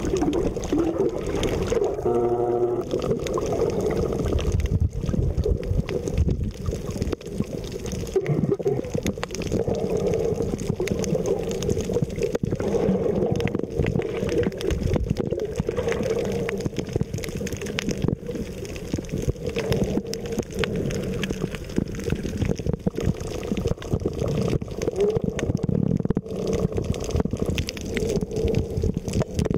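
Water gurgling and sloshing, heard through a camera held under the surface while snorkeling, with a steady scatter of small clicks and crackles.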